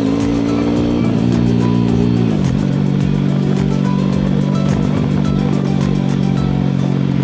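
Motorcycle engine of a tricycle running steadily on the road, its pitch dropping about two seconds in as the revs fall. Background music plays over it.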